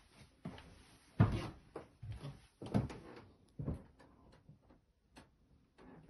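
A series of uneven knocks and thumps, the loudest about a second in.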